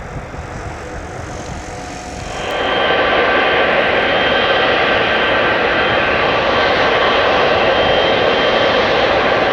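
Jet engines of a Boeing 777 freighter running, a loud steady rush with a high fan whine. It comes in abruptly about two seconds in, after a quieter low rumble.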